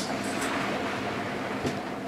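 Steady rush of water and wind moving past a sailboat under sail, with the engine off.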